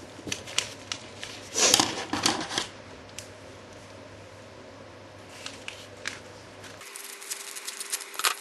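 Paper and plastic packaging being handled and unwrapped: rustling with scattered light clicks, a louder rustle about two seconds in, and dense crinkling starting near the end.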